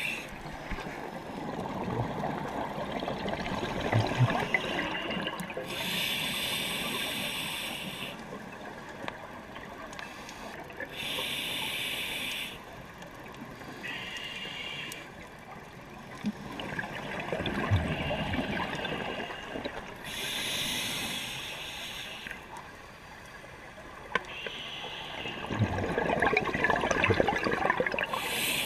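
Scuba regulator breathing heard underwater: slow, even breaths, each a hissing inhalation of a second or two through the demand valve followed by a rush of exhaled bubbles.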